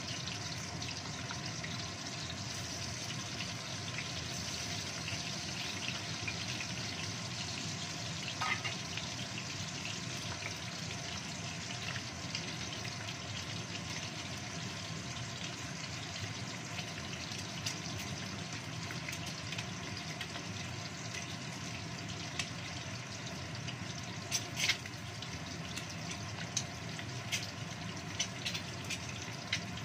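Boiled quail eggs frying in shallow oil in a wok: a steady sizzle with scattered pops and spatters, over the even hum of a kitchen smoke extractor fan.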